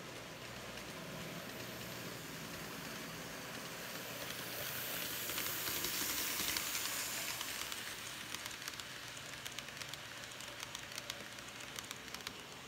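N scale model passenger train, the Kato ALCO PA-1 with its streamlined cars, running past on the track: a steady whirring hiss of motor and wheels that swells as the train passes close, about four to seven seconds in. From about eight seconds on it is joined by rapid light clicks of the wheels on the track.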